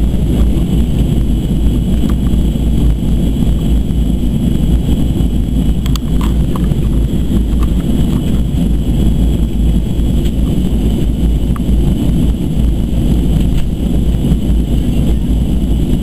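Steady low roar inside the cabin of a Boeing 737-200 Advanced in flight during the descent: the airliner's JT8D turbofan engines and the airflow over the fuselage, heard through the cabin.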